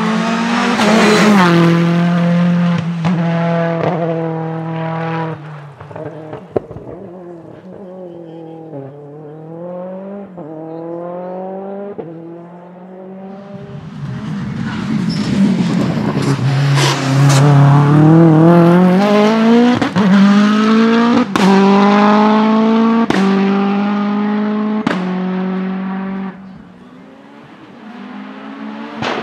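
Turbocharged TFSI engine of a VW Golf Mk2 hillclimb race car accelerating hard through the gears, its pitch climbing in each gear and dropping at each upshift. Sharp backfire bangs come on several upshifts. The engine sound falls away briefly near the end.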